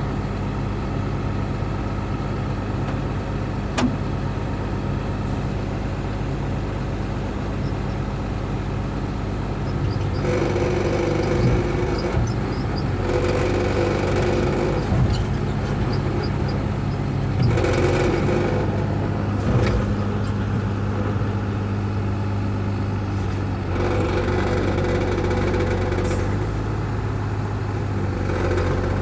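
Excavator diesel engine running steadily. Four times, for about two seconds each, the engine note swells louder as the machine works, and there is one short click early on.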